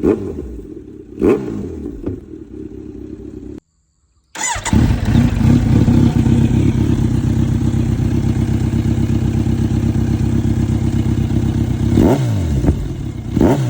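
Kawasaki Z900 inline-four through an aftermarket slip-on exhaust: the throttle is blipped twice, the revs jumping up and falling straight back. After a brief break the engine idles steadily for several seconds, then is blipped twice more near the end.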